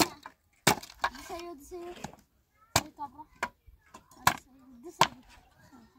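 Sharp blows of a hand tool striking and breaking up wooden pallet boards, about six strikes at uneven intervals.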